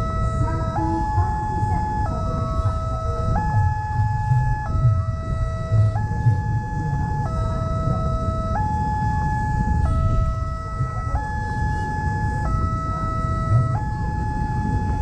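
Railway level-crossing warning siren sounding a two-tone alternating wail, switching between a lower and a higher pitch about every second and a quarter, warning that a train is approaching while the barrier is down. A low rumble of road traffic runs underneath.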